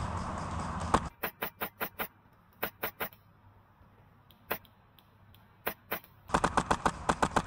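Airsoft guns firing: a quick string of about six sharp shots a second in, scattered single shots through the middle, then a fast burst of about ten shots near the end.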